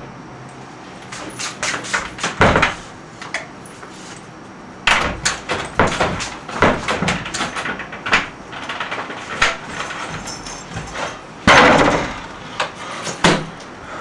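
Someone rummaging through a closet: irregular knocks, clatter and rustling of things being handled, with door knocks. The loudest is a bang about eleven and a half seconds in.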